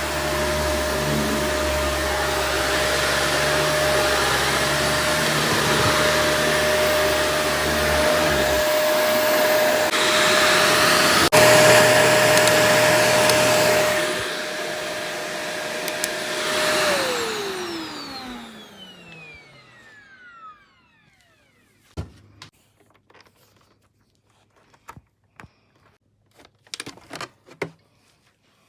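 Shark AZ4002 vacuum cleaner running with a steady high motor whine, louder for a few seconds near the middle. About 17 seconds in its motor winds down, the whine falling in pitch until it stops, followed by a few scattered clicks and knocks.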